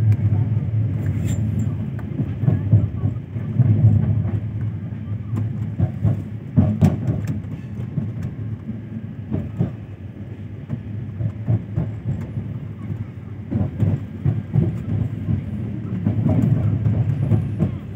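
Passenger train running, heard from inside the coach: a steady low rumble with scattered sharp knocks of the wheels on the track.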